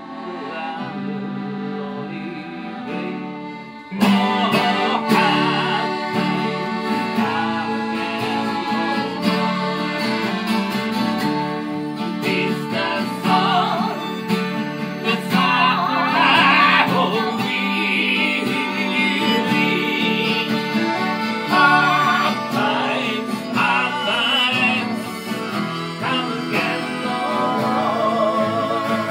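A small acoustic folk band playing a slow ballad: acoustic guitar, button accordion, electric guitar and blues harmonica. The band plays softly at first, then comes in fuller and louder about four seconds in.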